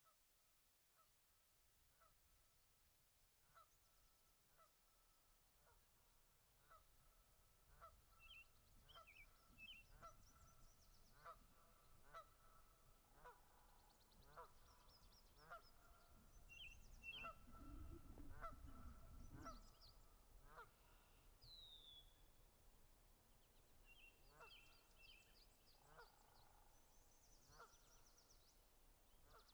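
Geese honking, a faint, steady series of short calls about once a second. Small birds chirp and trill higher above them, and a low rumble swells and fades about two-thirds of the way through.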